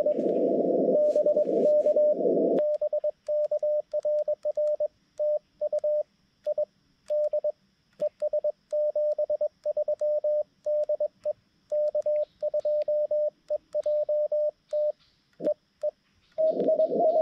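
Xiegu G90's Morse code sidetone as the operator sends CW on a paddle key: a single steady pitch keyed on and off in dots and dashes over silence, the receiver muted while transmitting. Before the sending, about the first two and a half seconds, and again near the end, the radio's narrow CW-filtered band hiss is heard.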